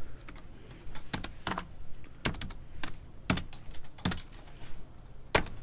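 Computer keyboard being typed on: single keystrokes at an uneven, unhurried pace, with one sharper stroke near the end.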